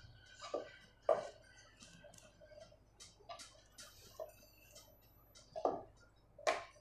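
Wooden rolling pin working a stuffed paratha on a wooden rolling board: scattered light ticks and clicks of wood on wood as the dough is rolled, lifted and turned. A few sharper knocks come about half a second in, about a second in, and twice near the end.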